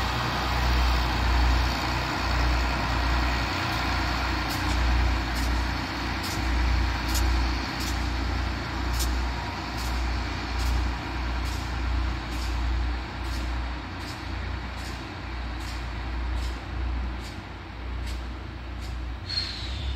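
Two coupled ALn diesel railcars pulling away, their engines giving a pulsing low throb that slowly fades as the train draws off. A faint regular ticking comes in at about twice a second, and a brief high squeal that falls in pitch sounds near the end.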